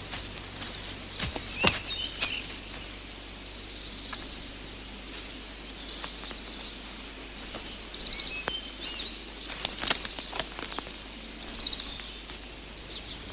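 A songbird repeating a short high trill every few seconds, with other faint chirps. Footsteps on forest leaf litter give a few sharp snaps and rustles, the loudest near the start.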